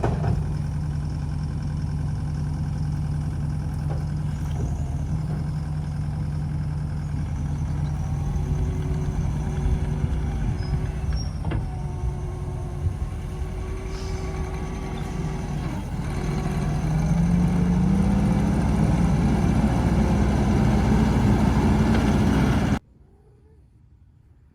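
An engine running steadily, then revving higher about two-thirds of the way through and holding there, before the sound cuts off abruptly near the end.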